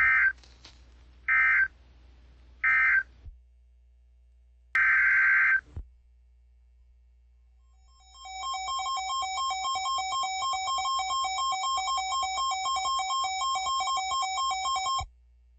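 Emergency Alert System data squawks: three short screeching digital bursts, the end-of-message code, then one longer burst. About eight seconds in, an electronic alert tone starts, two steady pitches pulsing rapidly for about seven seconds before cutting off.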